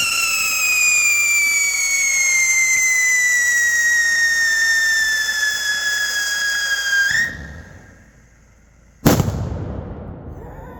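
Biohazard ground salute firework going off: a loud whistle that slowly falls in pitch for about seven seconds, flicks up and cuts off, then after a short pause a single loud bang that fades away.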